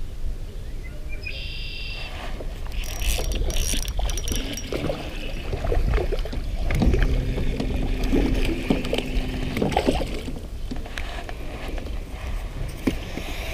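Spinning reel being cranked and fishing tackle handled in a small boat, with scattered clicks and knocks over a steady low rumble.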